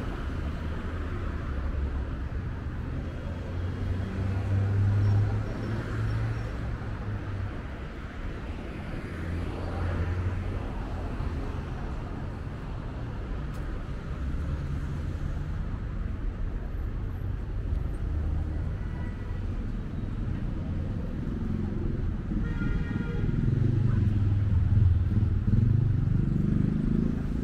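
City road traffic: a steady rumble of cars passing, swelling several times as vehicles go by. The loudest pass comes near the end, with the engine note changing in pitch.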